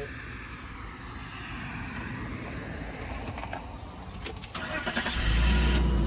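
BMW E39 being cranked on its starter, then firing and running up with a strong low rumble about five seconds in, the key held a moment too long after it catches. The car, which has an intermittent crank-no-start fault, starts this time.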